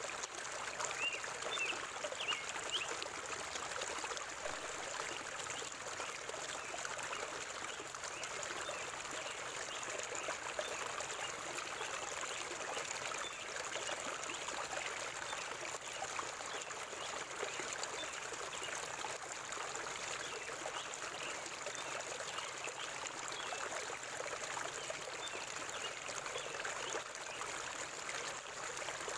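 River water flowing steadily through a forest, with a few faint bird chirps in the first three seconds.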